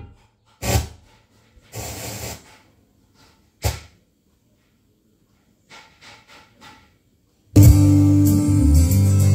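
Pioneer SX-580 receiver being tuned across the FM band: the station's music cuts off, the sound drops out, short snatches of noise come through four times as the dial passes other stations, then another station comes in with loud music about seven and a half seconds in.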